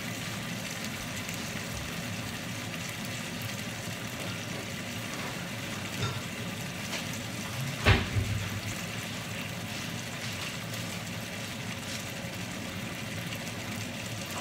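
Pork in soy sauce and water cooking in a pan on the stove: a steady sizzling hiss, with one sharp knock about eight seconds in.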